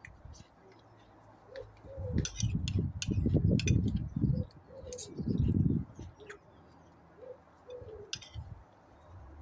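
A pigeon cooing several times, with sharp clicks of a fork and spoon in the bowl. Two louder stretches of low rumbling come about two to four seconds in and again around five seconds in.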